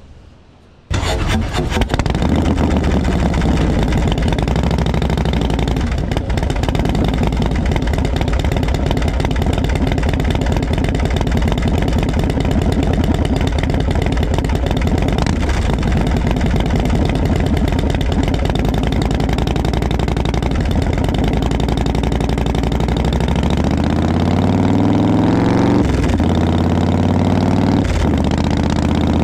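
Motorcycle engine starting about a second in and idling steadily, then revving and accelerating away, its pitch rising and dropping back twice at gear changes near the end.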